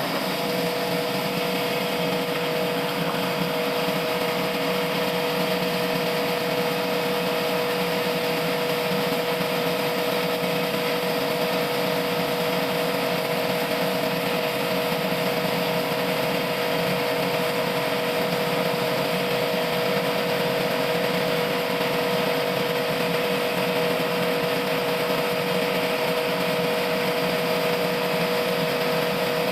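Sawmill machinery running steadily, a constant mechanical whine that holds one pitch without change.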